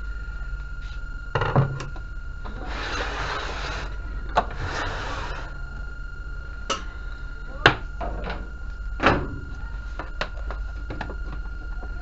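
A few sharp knocks and clicks and two short rustling hisses a few seconds in, over a steady low electrical hum and a faint steady high tone.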